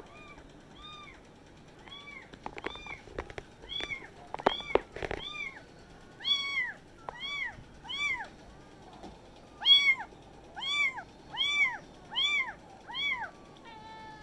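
Young kittens meowing over and over, several at once, each a short high call that rises and falls in pitch, about one or two a second. The calls are faint for the first couple of seconds, then louder, with a few soft knocks among them in the first half.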